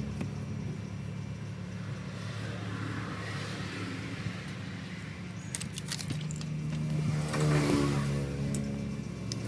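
Background music with a low, steady bass drone, and a few faint clicks about six seconds in.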